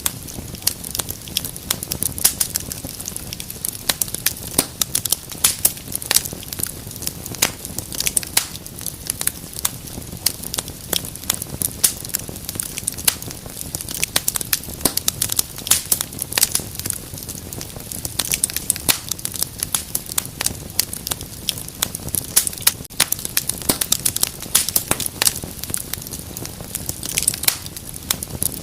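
Wood fire burning in a fireplace: dense, irregular crackles and pops over a steady low hiss of flames.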